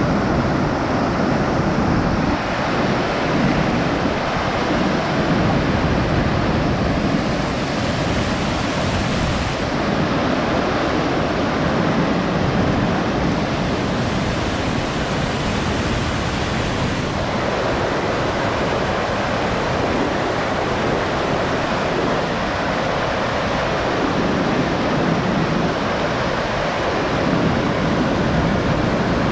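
Whitewater river rapids rushing and churning over rocks: a steady, loud rush of moving water.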